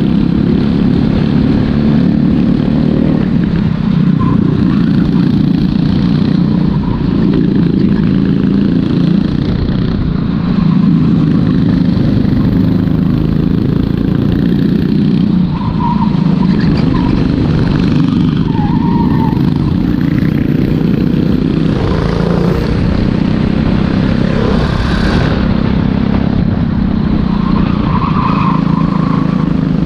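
Racing kart's engine heard from on board at racing speed, its pitch shifting with the throttle through the corners.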